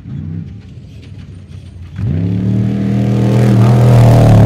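Off-road race car engine at full throttle, approaching and passing close by: faint in the first half, then louder and rising in pitch from about halfway in, and loudest near the end as the car goes past.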